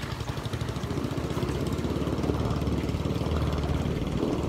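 Small engine of an outrigger boat (bangka) running steadily with a rapid, even low pulsing, under load as it tows a floating raft by rope.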